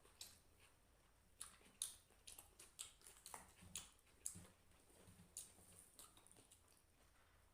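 Close-up mouth sounds of eating rice with fish curry by hand: wet chewing and lip smacks in short irregular clicks.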